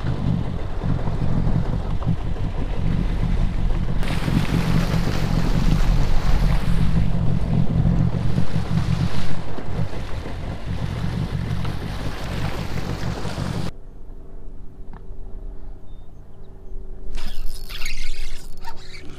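Sea-Doo GTX personal watercraft running across the water, its engine and jet noise mixed with wind buffeting the microphone. About 14 seconds in, the noise drops suddenly to a steady, quieter engine hum at idle.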